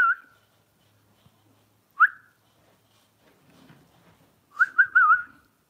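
High whistle-like squeaks: one short rising squeak about two seconds in, then a quick warbling run of four near the end.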